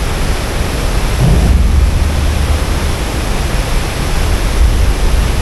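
Water rushing and churning out of a spillway gate, a steady loud noise; it deepens and grows a little louder about a second in.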